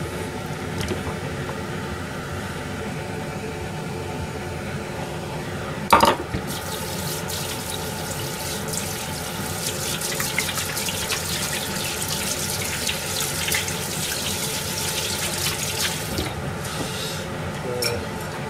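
Flour-coated vegetable pieces frying in hot oil as tempura: a sharp knock about six seconds in, then a dense crackling sizzle that thins out near the end, over a steady hum.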